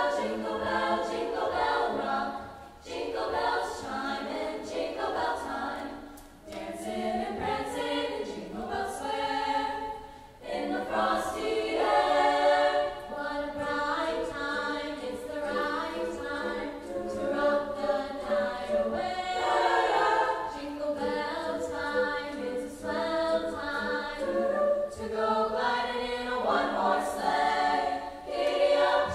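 A high school choir of mostly female voices singing, in phrases a few seconds long with brief breaths between them.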